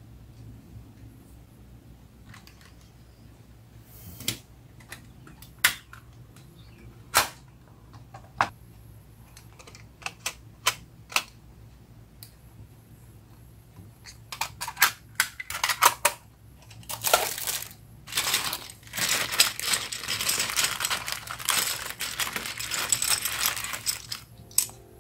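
Sharp clicks and taps from an empty metal watercolour tin with plastic half pans being handled. In the second half, a plastic bag of loose empty plastic half pans crinkles and rattles as it is handled.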